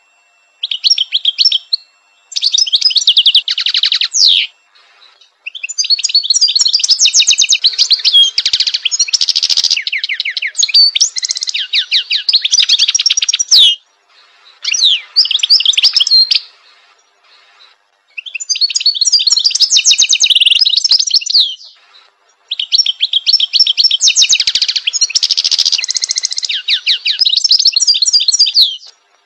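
European goldfinch singing: several long phrases of rapid, high twittering notes, with short pauses between them.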